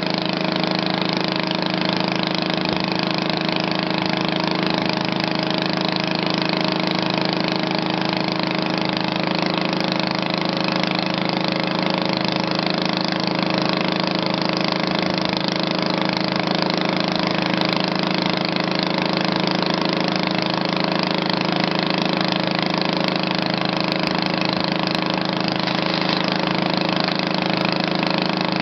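An engine idling steadily at an even pitch, without revving or pauses.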